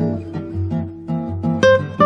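Background music: an acoustic guitar playing a run of plucked notes and chords, with a louder note struck near the end.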